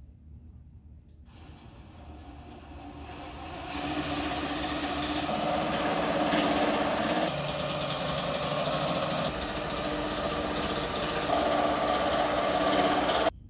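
A steady machine drone with a thin high whine above it, swelling in over the first few seconds, holding loud, then cutting off abruptly near the end.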